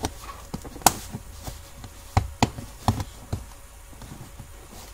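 Plastic pry tool working the plastic door sill trim loose: a series of sharp plastic clicks and taps, the loudest about a second in and several more close together around two to three seconds in.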